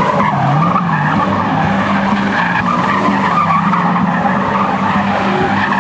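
TVR sports car's engine held at a steady note while its rear tyres squeal continuously as it spins donuts on tarmac.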